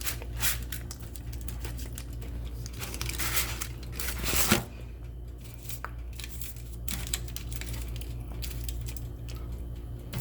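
Crumbly home-baked cookies being broken apart and handled, with scattered light clicks and taps and a louder crackle about four and a half seconds in, over a steady low hum.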